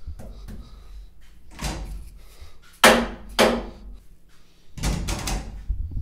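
A few short knocks and clunks, the sharpest and loudest about three seconds in, with a cluster of rattly bumps near the end.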